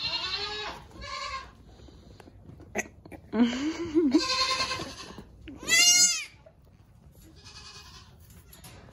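Nigerian dwarf goat kids bleating: about five separate high calls over several seconds, the loudest about six seconds in.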